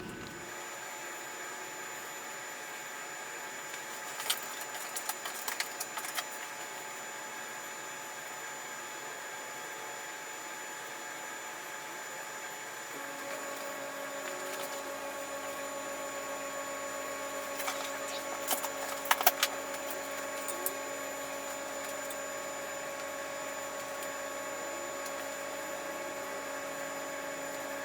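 Steady background hum made of several constant tones, with a deeper tone joining about halfway through. Two short runs of light metallic clicks and clinks, about four seconds in and again around eighteen to twenty seconds, as of small hardware and tools being handled.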